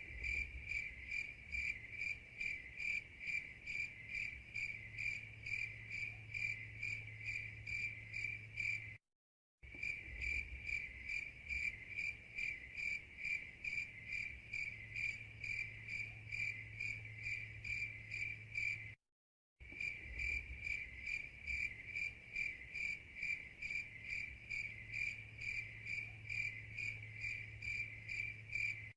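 Cricket chirping in a steady, even rhythm of high chirps, a few a second, over a faint low hum. It is a looped recording: twice the sound cuts to dead silence for about half a second and then starts again.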